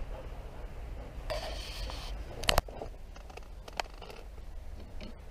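Wind rumbling on the microphone, a short rustle, then two sharp clicks close together about two and a half seconds in, with a few fainter ticks later: a shooter moving and handling his gear.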